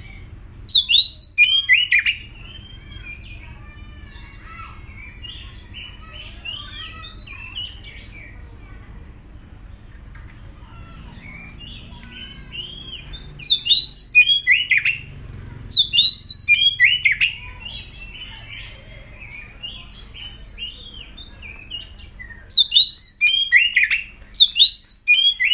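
Oriental magpie-robin singing an excited, aggressive song. Four loud bursts of rapid whistled and scratchy phrases, each a second or three long, come with softer twittering between them.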